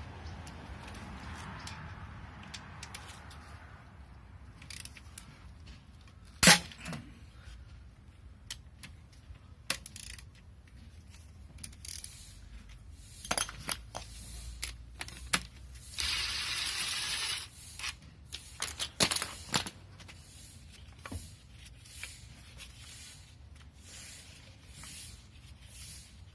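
Hand tools clinking and knocking on engine metal while a bolt on an engine's metal coolant line is worked loose, with one sharp knock about six seconds in. Around sixteen seconds comes a short hiss lasting about a second and a half.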